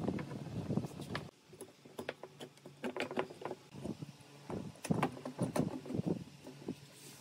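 Irregular clicks and knocks of metal bar clamps being handled, fitted and tightened onto pine boards on a wooden workbench.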